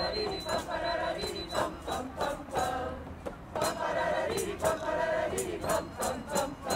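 A crowd of men and women singing janeiras, traditional Portuguese New Year songs, together from song sheets, in phrases of held notes with short breaks between them.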